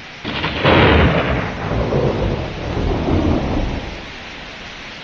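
A thunderclap starting suddenly, then rolling on in two or three rumbling swells for about three seconds, over a steady hiss of heavy typhoon rain.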